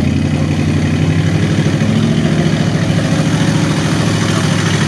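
Lifted Chevy mud truck's engine running hard at steady high revs through open exhaust stacks, a loud pulsing rumble.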